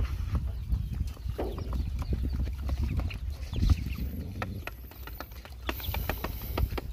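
Dogs and puppies eating from a shallow metal tray: a run of quick clicks and knocks of chewing and food against the metal, with a chicken pecking at the tray and clucking softly a few times.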